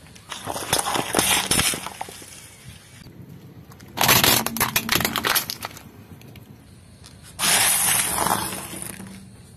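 A car tyre slowly crushing objects three times over: foil cups with orange lollies crinkling and crackling, then a sudden, loudest burst of crunching about four seconds in as a toy bird goes under the tyre, then a pile of candy-coated chocolates crunching and crackling near the end.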